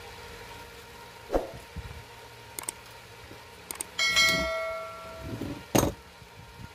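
Subscribe-button pop-up sound effect: a couple of light clicks, then a bell chime about four seconds in that rings and fades over about a second. A sharp knock follows near the end.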